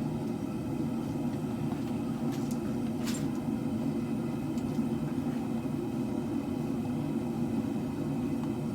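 Propane forge burners running: a steady low rushing noise, with a couple of faint clicks about two and a half and three seconds in.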